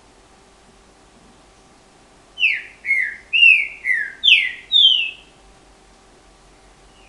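Caged green-winged saltator (trinca-ferro) singing one loud whistled phrase of six falling notes in about three seconds, starting about two and a half seconds in.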